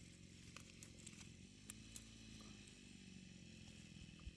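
Near silence: faint steady background hum with a few soft clicks.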